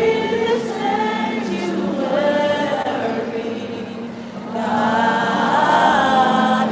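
Congregation or choir singing a slow worship song, voices holding long notes over a steady low accompaniment, swelling louder about two-thirds of the way through.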